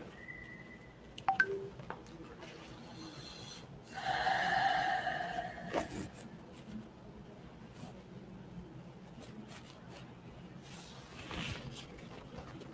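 Low background noise over a video-call line, with a couple of small clicks and rubs as an earphone is handled. About four seconds in comes a steady pitched tone lasting about two seconds.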